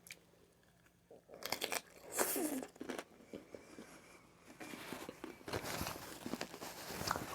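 Someone eating aguachile verde: irregular crunching, chewing and mouth clicks that start about a second in, with one longer, louder stretch around two seconds in.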